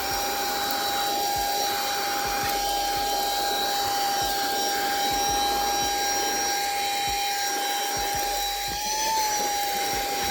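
Wyze cordless handheld vacuum running on its regular, non-turbo speed while cleaning a car seat: a steady motor whine over rushing air. The pitch rises briefly near the end.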